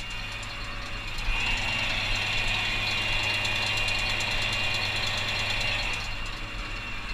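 Tractor engine running steadily under load, heard from the cab. A higher hiss joins in about a second in and fades near the end.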